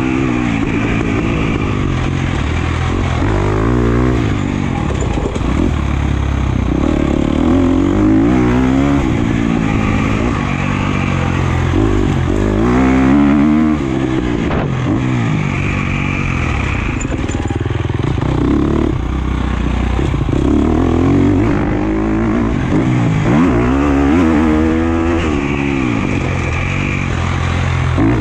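Husqvarna FC250 250cc four-stroke single-cylinder motocross engine revving up and falling off again over and over, its pitch rising and dropping every few seconds as the bike is ridden hard around the track.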